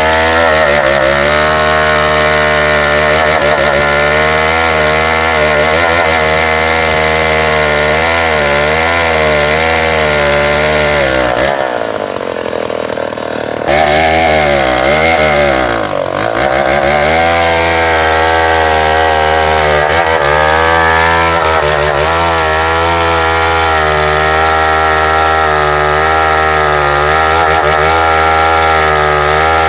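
Tecogold 700 two-stroke chainsaw running at high revs while cutting bengkirai hardwood, its engine pitch wavering up and down under load. About twelve seconds in the sound drops away for a couple of seconds, then comes back to full revs.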